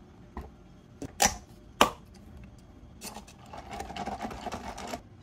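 Plastic iced-drink cup being handled: a few sharp knocks in the first two seconds as it is set down, then a run of soft crackling clicks as the plastic lid is pressed on.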